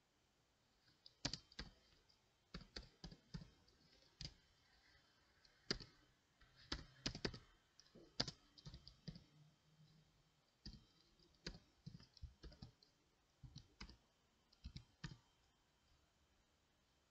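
Computer keyboard keys clicking in irregular runs of typing, starting about a second in and stopping a couple of seconds before the end.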